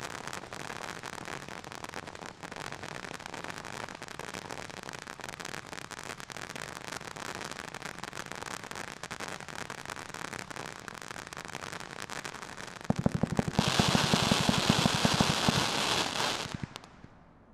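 Jim Dandy 500 g firework cake running as a ground fountain, spraying and crackling steadily. About thirteen seconds in it changes to a rapid, louder volley of shots launching aerial bursts, which stops suddenly about a second before the end.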